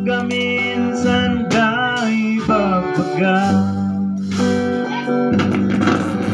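Band practice of a Kankanaey song: electric bass and guitar played through amplified speakers, a wavering lead melody over a steady, full bass. About five seconds in, the playing turns to busier, rhythmic strumming.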